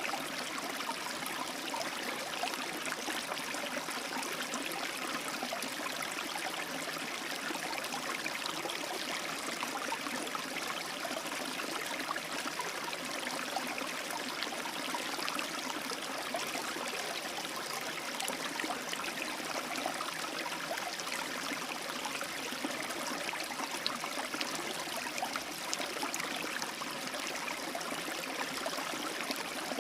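A small, fast-flowing stream running over rocks: a steady rush of water with a fine, continuous splashing.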